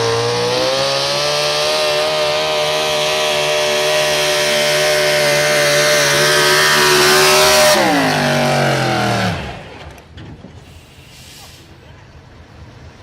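Super stock 4x4 pulling truck's engine at full throttle, holding a high, steady pitch that creeps slightly upward. About eight seconds in the throttle is lifted and the engine winds down sharply in pitch over a second or so, leaving only faint sound.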